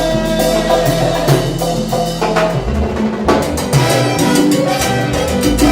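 Salsa orchestra playing an instrumental passage without vocals: percussion and drums over a moving bass line and sustained instrument notes.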